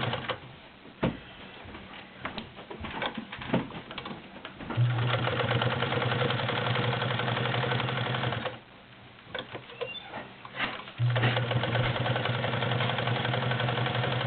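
Singer Spartan 192K straight-stitch sewing machine stitching through four layers of thick denim. It runs steadily in two spells of about four seconds each, with pauses of scattered clicks and knocks between them.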